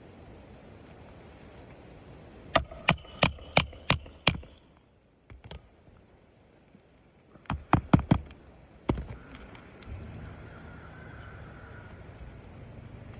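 Hammer striking roofing nails during a shingle repair: six quick, ringing blows about three a second, then after a pause a fast cluster of four or five more blows.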